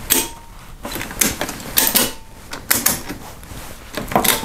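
Ratchet on a webbing strap being worked to tighten it, a series of sharp mechanical clicks roughly every half second, pulling load onto a screw in a repaired drywall anchor.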